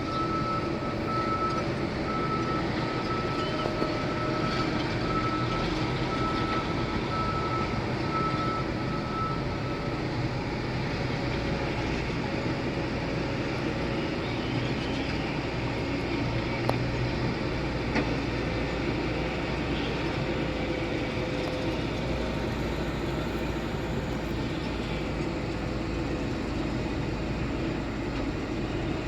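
Heavy diesel construction machinery running steadily at a work site, with a repeated high beeping for the first ten seconds or so.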